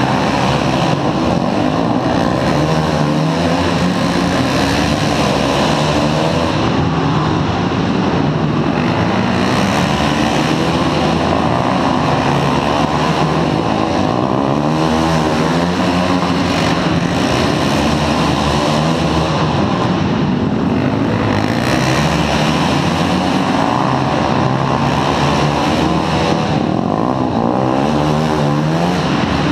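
A pack of flat-track racing motorcycles lapping an indoor dirt oval. Their engines rev up and down in waves every few seconds as the riders pass the corners, inside a large arena hall.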